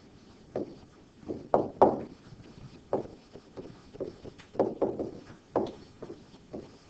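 Stylus knocking and tapping on a digital writing surface during handwriting: a string of irregular sharp taps, about one or two a second.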